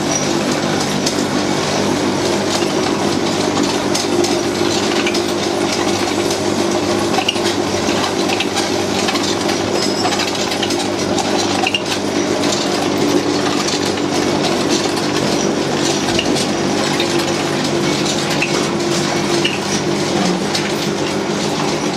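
Electric-motor-driven naswar (snuff) grinding and extruding machine running steadily, with scattered small clicks and rattles over its even drone.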